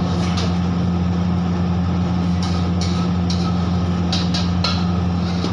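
A metal ladle clinks and scrapes against an iron wok several times in the second half, over a steady, loud low hum of running kitchen equipment.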